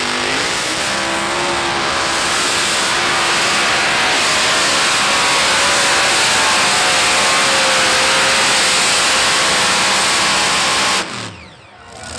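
Heavy modified pulling tractor's engines running flat out during a pull, rising in pitch at the start and then holding a loud, steady high-power scream. The sound drops away suddenly near the end.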